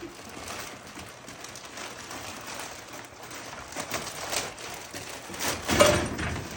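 Cardboard packaging rustling and crackling as it is handled and pulled away from the chair parts, with a louder crunch about six seconds in.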